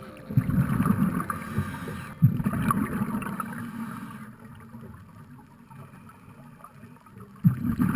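Scuba regulator exhaust bubbles heard through an underwater camera housing: three bursts of exhaled air, each starting suddenly and fading over a second or two, with a quieter stretch between the second and third.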